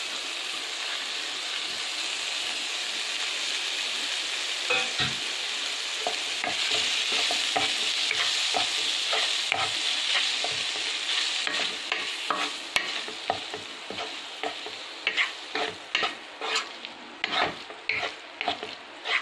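Grated paneer frying and sizzling in a pan with a cooked onion-tomato masala while a wooden spatula stirs it. The sizzle eases in the second half, leaving the spatula's quick scraping strokes against the pan, about two a second.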